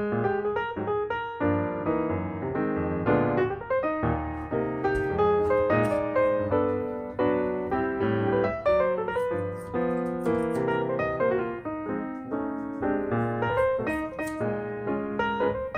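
Background piano music, a steady run of keyboard notes.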